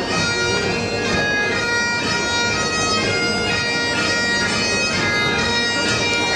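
Great Highland bagpipe playing a quick tune to accompany a Highland sword dance, the drones holding one steady tone under a fast-changing chanter melody.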